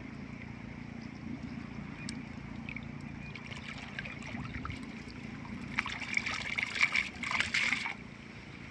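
River water trickling and splashing around a fishing net, with a run of louder, irregular splashing about six seconds in that lasts a couple of seconds.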